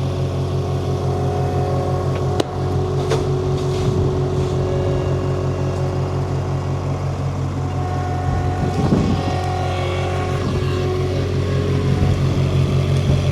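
Diesel engine of a farm vehicle running steadily at a constant speed, with a few sharp knocks about two and three seconds in.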